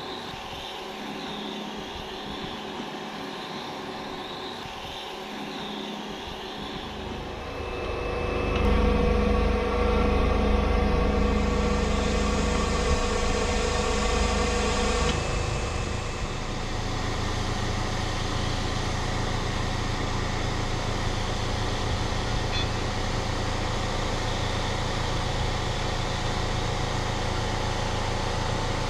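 A Bobcat mini excavator's diesel engine running. It gets louder from about eight seconds in, with a steady whine for around six seconds as it works to pull out a tree stump, then settles back to an even run.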